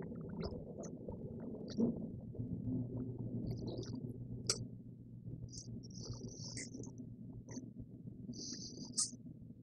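Quiet room noise with a steady low hum, a few soft knocks and clicks, and short faint high-pitched chirps in the second half.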